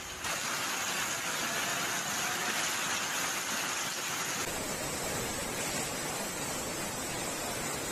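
Heavy rain and floodwater rushing through a street, a steady hiss of water. About four and a half seconds in the noise changes as a torrent of muddy floodwater takes over.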